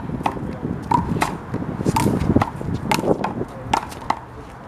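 Hollow rubber handball (big blue ball) being slapped by hands and smacking off the wall and court in quick succession, about two sharp pops a second.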